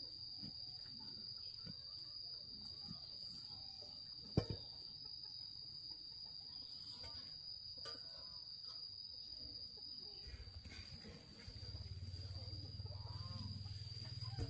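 Steady high-pitched insect trill, with a single sharp knock about four seconds in and a low hum coming in near the end.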